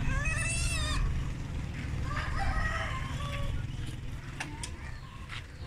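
Piglets in a market cage squealing: a high, wavering squeal in the first second, then more shorter calls a couple of seconds later.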